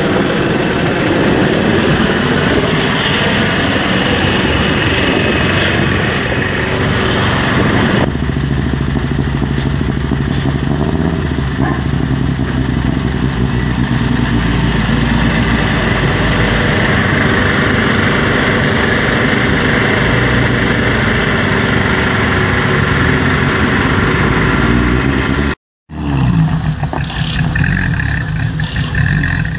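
Rally car engines running steadily. The sound cuts out for a moment near the end, and then a different car engine is heard running.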